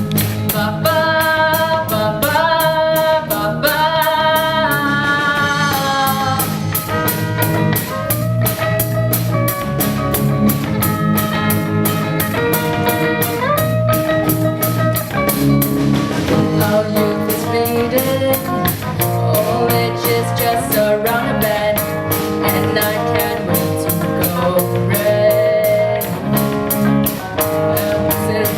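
A band playing an upbeat song: drums keeping a steady, fast beat under guitar and bass, with a melody line moving over them.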